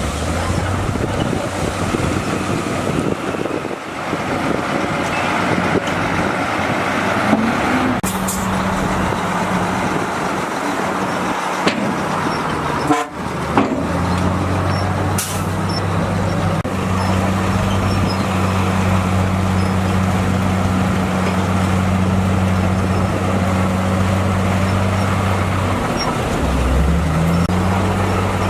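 Diesel engine of heavy earthmoving machinery running steadily as a low drone, the engine note dropping away for a moment about halfway through and shifting briefly near the end.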